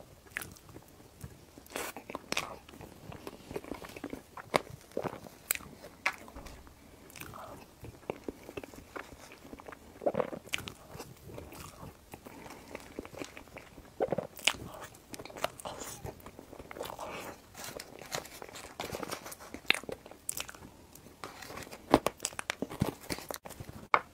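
Close-miked eating sounds: wet chewing and mouth noises with many small, sharp crunches from a soft layered cake with a crumbly topping. A single knock comes right at the end.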